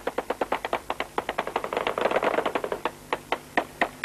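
Automatic rifle fire: a long run of rapid shots, about eight a second, thinning to separate shots about four a second over the last second.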